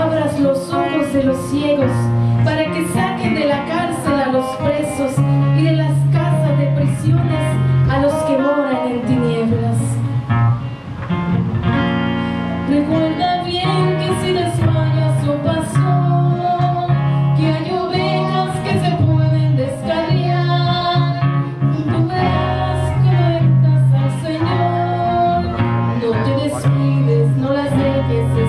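Live worship song: a woman singing into a microphone, accompanied by a strummed acoustic guitar over steady low bass notes.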